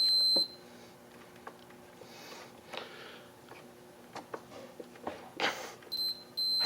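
Multimeter continuity beeper: a steady high beep that stops about half a second in, then faint clicks and handling sounds, and two short beeps near the end. The beeps come as the power switch is pressed and show continuity through the switch, connector and wires.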